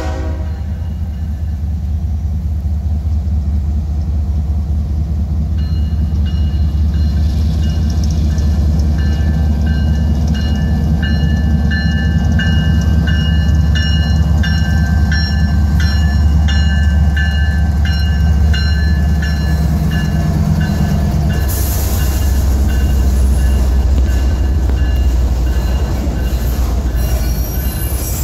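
Freight train's diesel locomotives approaching and passing with a heavy, steady low rumble. A high, regularly pulsing ringing rides over it through the middle. About three quarters through, the engine rumble eases and the rattle of autorack cars rolling past takes over.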